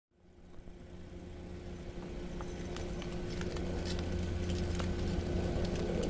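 A steady low mechanical hum, fading in, with scattered light clicks over it.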